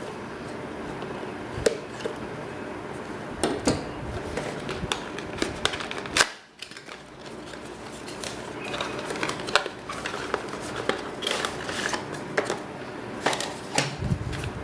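A knife slitting the seal on a small cardboard boxed Intel Core i5-6500 processor package and the box being opened and handled, heard as scattered clicks, scrapes and rustles of cardboard and plastic.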